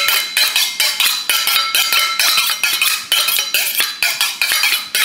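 Kitchen knife blade drawn rapidly back and forth along a steel honing rod: a quick, even run of metallic scraping strokes, each with a ringing tone, as the edge is honed.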